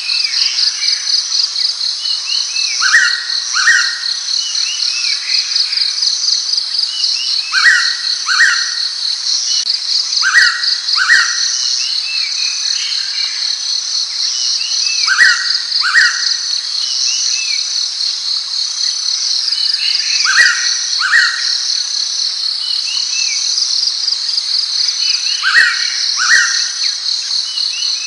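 Blue-winged pitta calling its loud double whistle, two falling notes in quick succession, repeated six times about five seconds apart. A steady, rapidly pulsing high insect trill runs underneath, typical of a cricket or cicada.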